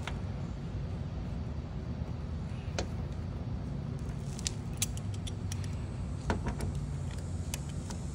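A handful of small, sharp clicks as metal license plate screws and a screwdriver are handled and started into the plastic plate bracket, over a steady low background rumble.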